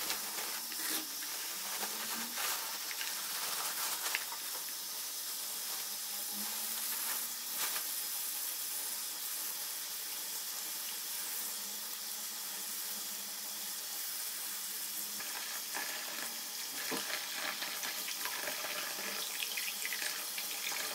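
Tap water running steadily into a sink while freshly picked pine shoots are rinsed, with a few light knocks.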